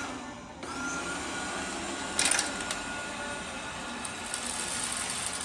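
Liectroux robot vacuum cleaner running, its suction fan a steady hiss with a faint whine. There is a brief louder burst of noise about two seconds in.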